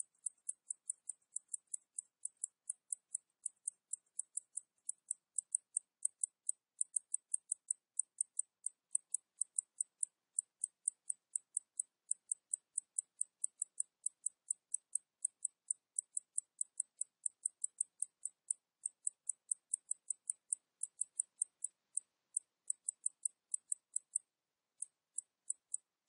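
Cicada chirping in a steady rhythm of short high-pitched pulses, roughly three a second, with a brief break near the end.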